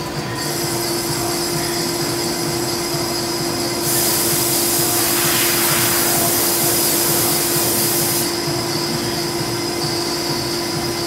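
CNC lathe running, turning a metal workpiece under flood coolant, with a steady hum and one held tone. A louder hiss sets in about four seconds in and eases off about four seconds later.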